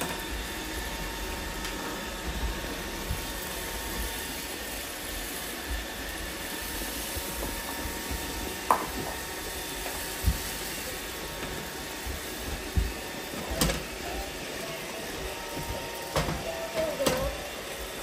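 iRobot Roomba robot vacuums running with a steady hum, with several sharp knocks of plastic toys being picked up and set down on a hardwood floor in the second half.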